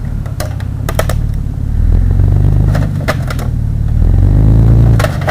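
Chevy 350 small-block V8 in an S10 pickup running with a low rumble that swells twice. Over it come clusters of sharp crunching clicks and knocks as the truck rolls over a wrecked microwave.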